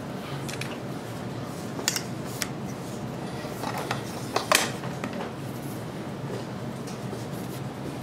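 Handling noise from a telescoping boom pole: a few light clicks, then a louder clicking scrape about halfway through, over steady room noise.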